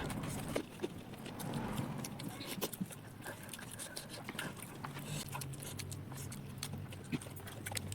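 Close-miked eating sounds: chewing with an irregular scatter of sharp crunches and mouth smacks.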